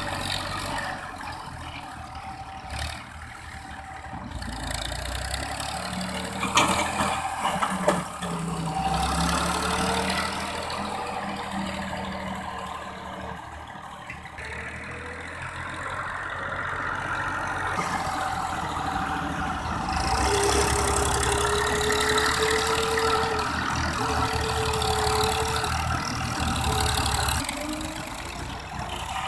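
Massey Ferguson 240 tractor's three-cylinder diesel engine running as it drags a rear blade of sandy soil, its pitch and loudness rising and falling. There are two sharp knocks about a quarter of the way through.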